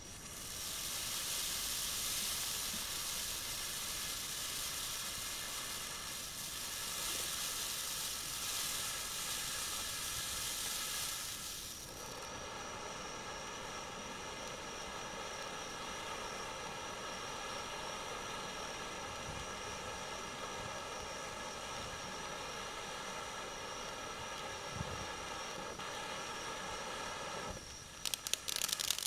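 AFW Black Out fountain firework burning with a steady spark-spraying hiss. About twelve seconds in, the hiss thins and a steady pitched whine sounds under it. Near the end sharp crackling pops break in.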